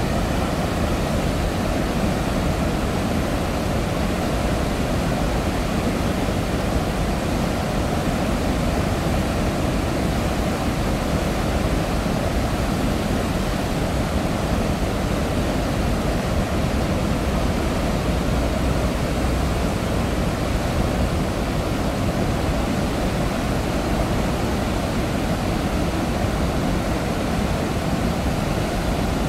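Floodwater roaring out through the open spillway gates of Paldang Dam and churning in the river below. It is a steady, deep, unbroken rush, released to lower the reservoir after heavy rain.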